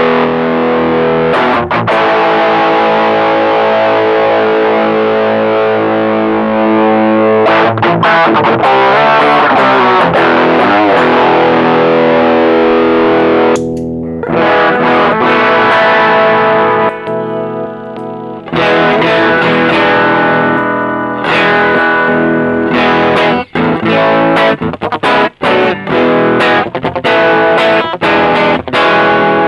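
Electric guitar played through a Caline Green Mamba overdrive pedal with the pedal engaged, giving a mildly driven tone with only modest gain. Ringing overdriven chords fill the first half, then it changes to short, choppy chord stabs with small gaps toward the end.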